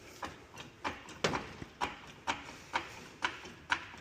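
Floor jack being pumped by its handle to raise a car, a sharp knock with each stroke about twice a second.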